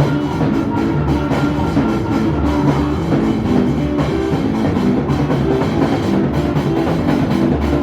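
Loud band music with a drum kit keeping a steady beat over bass and guitar.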